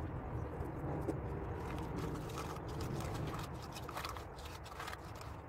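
Chalk paint thickened with gritty texture powder being stirred in a cup: soft, irregular scraping and grinding over a steady low rumble.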